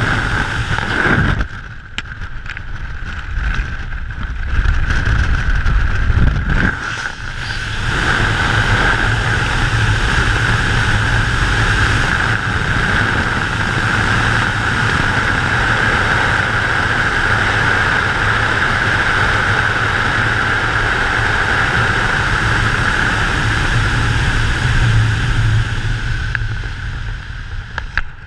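Airflow rushing over a wingsuit and its mounted camera in flight, a steady wind noise with a constant high whistle and a low rumble. It dips briefly twice in the first seven seconds, then holds steady.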